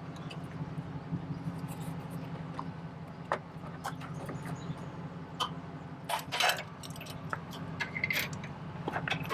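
Metal hitch hardware being handled while a travel trailer is hooked up: scattered clinks and rattles, busiest about two-thirds of the way in, over a steady low hum.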